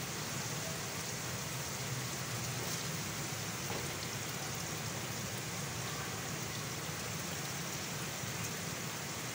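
Arvi (taro root) in oily masala sizzling steadily in a nonstick kadai as it is bhuna-fried over the flame.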